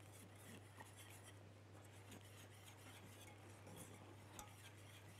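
Near silence: a steady low hum, with faint scraping and small ticks of a wire whisk stirring béchamel sauce in a stainless steel saucepan.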